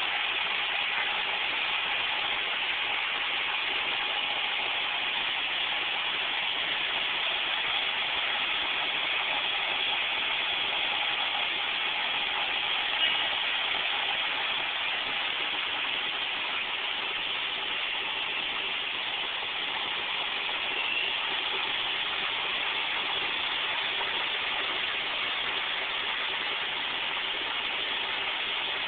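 Greyhound MC-12 coach's diesel engine running as it pulls away, heard under a steady, even hiss with a faint hum. There is one short bump about halfway through.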